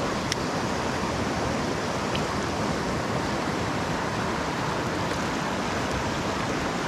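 Fast-flowing shallow river rushing over rocks: a steady wash of moving water.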